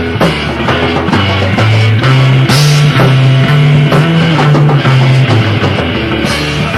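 Live improvised rock played by a three-piece band, recorded raw without a sound check: guitar and drum kit over low held notes that move in steps, with a loud high crash about two and a half seconds in.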